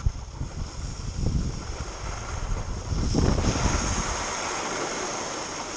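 Wind buffeting a camera's microphone while skiing down a groomed slope: a low gusty rumble over a steady hiss. The rumble drops away about three and a half seconds in, leaving a steadier hiss.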